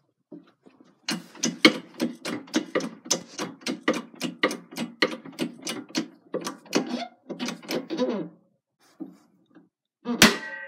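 Hydraulic shop press being pumped up, a rapid run of rhythmic mechanical clicks at about three to four strokes a second. Near the end a single sharp metallic crack with brief ringing as the RC dog bone's cross pin breaks free.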